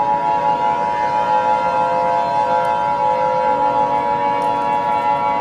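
Emergency alert siren sound effect: a loud, steady chord of several held tones with a slight flutter in loudness and no rise or fall in pitch.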